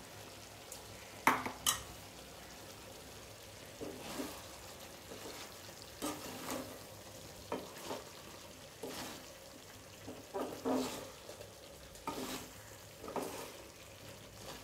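Wooden spatula stirring chicken pieces in a metal pan, scraping in short irregular strokes every second or two, over a faint sizzle of frying.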